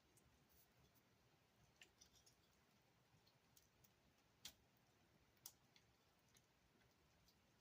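Near silence with faint, scattered clicks of hard plastic toy parts being handled and fitted together, two sharper clicks about four and a half and five and a half seconds in.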